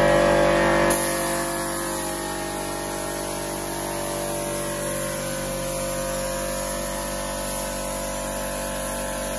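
A motor hums steadily under the hiss of a gravity-feed spray gun spraying etch primer, a little louder for the first second.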